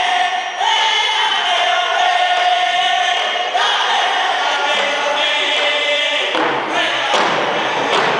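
A group of men singing a powwow hand-drum song in high-pitched unison, long held and sliding notes. Hand drums come in near the end with single strikes about a second apart.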